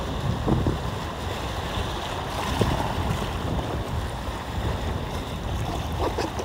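Wind buffeting the microphone over lapping sea water, with a few short splashes.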